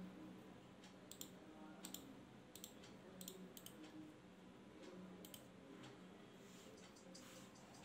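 Faint, sharp button clicks of a Zebronics Transformer-M gaming mouse, about a dozen scattered through, several coming in quick pairs.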